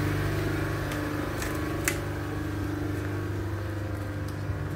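Steady low machine hum with a single sharp click about two seconds in.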